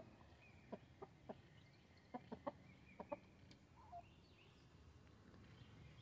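Chickens pecking at feed and dirt: faint, scattered sharp taps, about seven in the first three and a half seconds, with one short, soft cluck about four seconds in.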